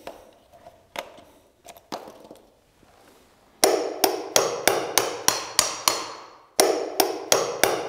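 Hammer striking a screwdriver used as a chisel, chipping plaster out around a plug-socket hole in a wall. A few scattered knocks and scrapes come first, then from about halfway a quick, even run of sharp strikes, about three a second, with a short break near the end.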